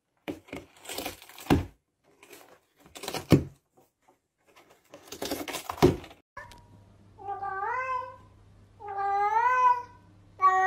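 A domestic cat's raspy, unpitched yowls in short loud bursts. Then a cat gives three long meows, each rising and then falling, over a low steady hum.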